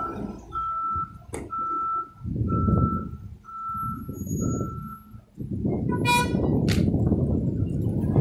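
Forklift backing up: its reversing alarm beeps steadily about once a second over the running engine. The beeping stops about five seconds in, and the engine then runs louder, with a short high sound about six seconds in.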